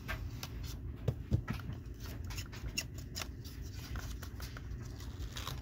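Cardboard collector's box for a diecast model truck being cut open with a knife and handled: scattered scrapes, rustles and small clicks, with two sharper taps about a second in.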